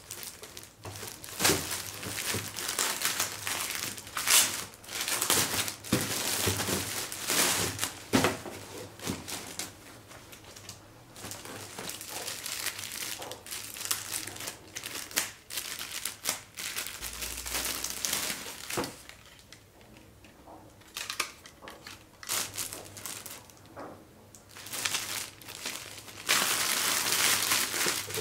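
Clear plastic garment bags crinkling in irregular bursts as they are handled and opened. The sound is quieter for a few seconds past the middle and busier again near the end.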